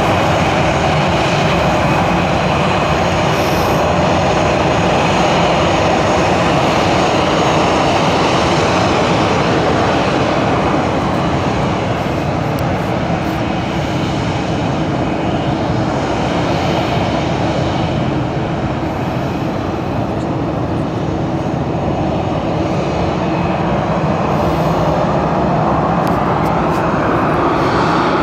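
The CFM56-7B jet engines of a Boeing 737-800 running loud and steady: a broad rush with a whine over it. The sound eases a little past the middle and swells again near the end.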